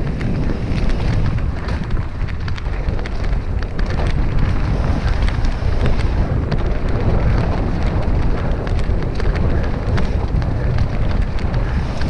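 Mountain bike riding a rough downhill trail: wind rushing over the microphone, with a steady rumble of tyres over dirt and rock and many small clicks and rattles from the bike.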